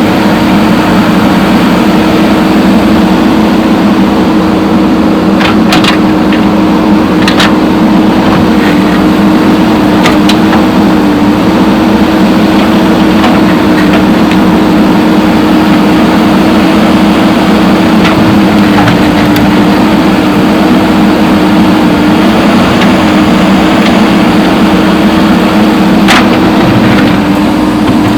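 JCB backhoe loader's engine running steadily at constant revs, with a few scattered sharp knocks.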